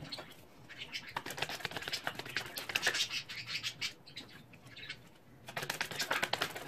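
Tarot cards being handled and laid out on a wooden table: a fast run of light clicks and flicks of card stock, a pause of about a second, then more clicking as the deck is worked again.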